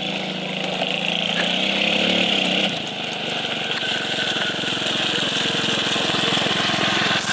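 Small children's quad bike engine running as the ATV is ridden. Its pitch rises briefly about two seconds in, then it runs on steadily with a rapid, even putter as it comes close.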